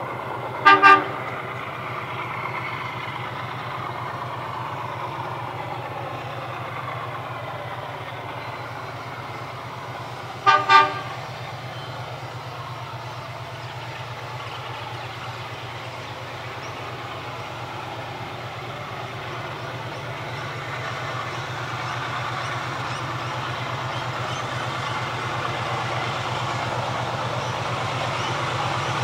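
Diesel locomotive 958 approaching from a distance: its engine drone grows steadily louder. Its horn sounds two short double toots, about a second in and again about ten seconds later.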